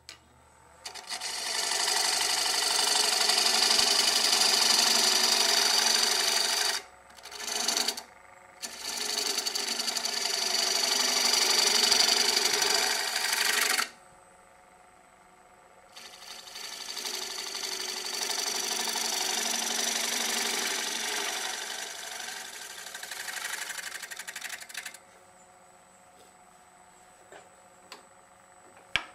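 Bowl gouge cutting elm on a spinning wood lathe: a scraping hiss of shavings in four passes, each stopping abruptly, the last softer and longer. The lathe's faint motor hum is left in the pauses.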